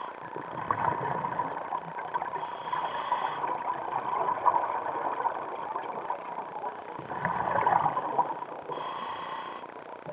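Scuba diver breathing through a regulator underwater, heard through the camera housing. It goes through two cycles: a crackling rush of exhaled bubbles, then a hissing inhalation through the regulator.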